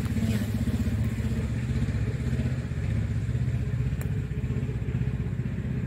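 Steady low drone of an engine or motor running, with a fast even throb.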